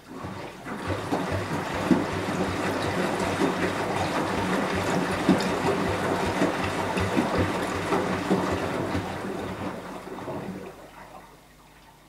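Beko WMY 71483 LMB2 front-loading washing machine drum turning, with wet laundry sloshing and slapping through the water in the drum. The sound sets in within the first second and stops about ten and a half seconds in as the drum comes to rest.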